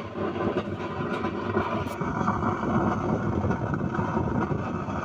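Zebronics 4.1 home theater's bass woofer playing with a crunchy, scratchy "khar khar" distortion, a bit louder from about two seconds in. The fault lies in the bass channel's amplifier IC.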